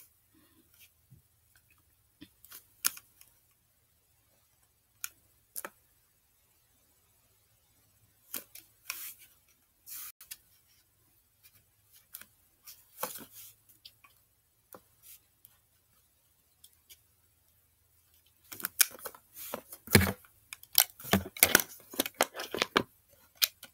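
Handling of a small plastic slime container and packets: scattered light clicks and crinkles, then from about 18 seconds in a dense run of rapid clicking, tapping and rattling against the plastic as add-ins are mixed into the slime.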